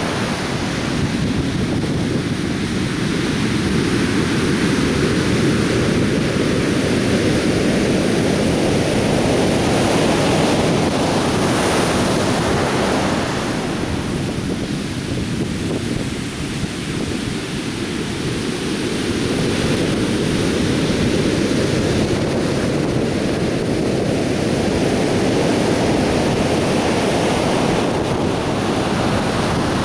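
Atlantic Ocean surf on a sandy beach: a continuous wash of breaking waves that swells and eases over several seconds.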